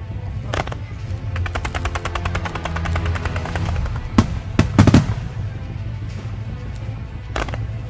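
Fireworks going off: a sharp bang, then a rapid string of crackling reports at about ten a second for a couple of seconds, then a cluster of loud bangs and one more bang near the end, over a steady low rumble.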